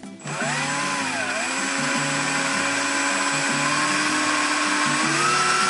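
Cordless drill running a half-inch countersink bit into a screw hole in a retractable landing gear's mounting plate. Its motor whine dips briefly under load about a second in, then climbs in pitch near the end before stopping.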